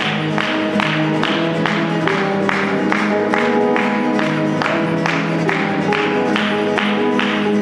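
Live instrumental passage played on keyboard and acoustic guitar, with sustained chords and a steady beat of sharp strokes about two to three a second.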